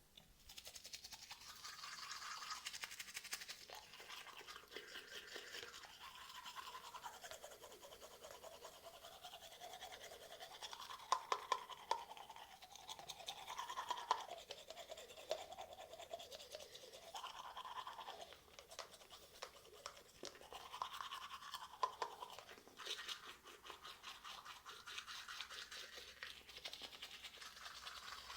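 A manual toothbrush scrubbing teeth with rapid back-and-forth strokes, the scrubbing changing in tone as the brush moves around inside the mouth.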